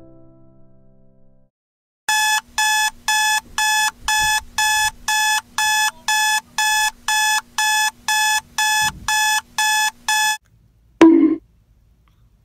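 Electronic alarm clock beeping, about two short beeps a second for roughly eight seconds, then stopping. A single brief loud sound follows about a second later.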